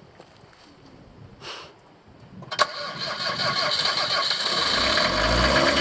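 Van engine starting on its new timing belt: after a few faint ticks, a sharp click about two and a half seconds in, then the engine catches and runs, getting louder as its revs climb.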